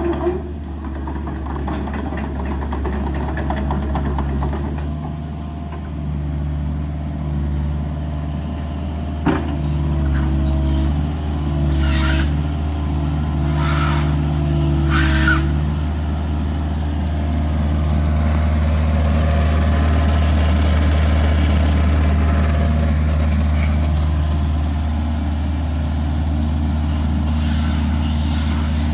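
Kubota RX-505 mini excavator's diesel engine running steadily, with a pitched whine that shifts in tone for a while and a sharp click and a few short hissing strokes about ten to fifteen seconds in.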